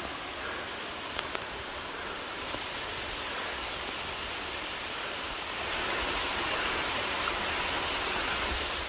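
A small waterfall cascading over rocks in a creek: a steady rush of water, a little louder for the last few seconds. Two faint clicks just after a second in.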